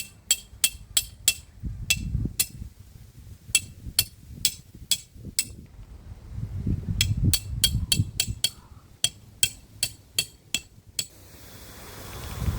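A hammer striking a metal tent peg in quick runs of ringing clinks, about four a second, with short pauses. Gusts of wind rumble on the microphone between the runs, and the wind rises near the end.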